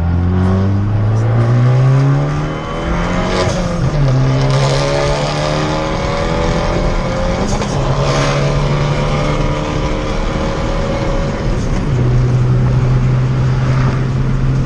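2013 Fiat 500 Abarth's turbocharged 1.4-litre four-cylinder engine under hard acceleration. The revs climb through the gears and drop at gear changes about two, eight and twelve seconds in.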